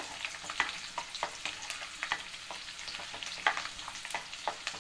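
Chopped garlic and cumin seeds sizzling in hot oil in a wok while a spoon stirs and scrapes against the pan, with sharp scraping clicks two or three times a second.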